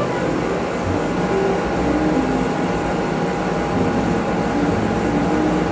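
Background music: soft held notes in a slow melody over a steady sustained tone.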